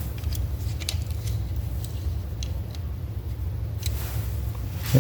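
Small metal clicks and light handling noises from a pair of calipers being set against a distributor housing to measure seal depth, about half a dozen scattered clicks over a steady low hum.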